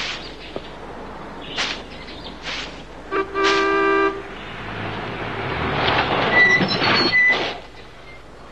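A broom sweeping pavement in three short strokes, then an old-fashioned car horn honking once for about a second. A car then drives up, its sound swelling louder, with two short high squeaks as it pulls up.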